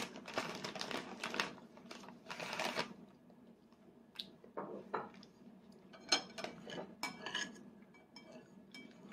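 A spoon lightly clinks and taps against a child's divided plate. The taps come in a cluster with brief ringing about six to seven and a half seconds in, after soft rustles in the first few seconds.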